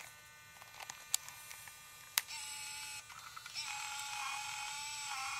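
MiniDV camcorder tape-eject mechanism. A few small mechanical clicks come first, then its servo motor whines briefly, pauses, and whines again for about two seconds as the cassette mechanism moves.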